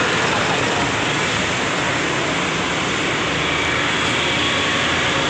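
Steady rush of road traffic from motor scooters and auto-rickshaws passing on a city road.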